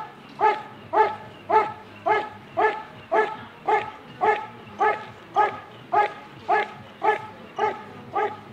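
Working dog barking steadily at the helper's bite sleeve in an even rhythm, a little under two barks a second, each bark about as loud as the last: the guarding bark of IGP protection work.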